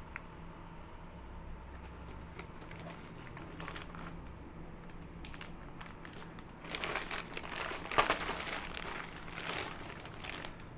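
Clear plastic bag crinkling as it is pulled off a bench power supply: faint, scattered rustles at first, then a louder stretch of dense crinkling about two-thirds of the way through.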